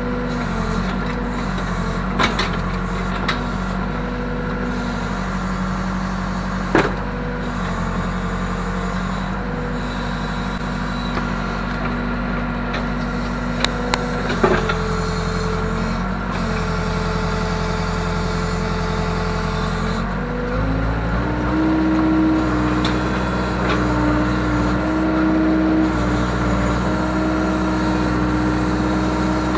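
Case 580K backhoe's diesel engine running steadily under work, with a few sharp metal clanks in the first half. About two-thirds of the way in the engine revs up a little and holds the higher speed.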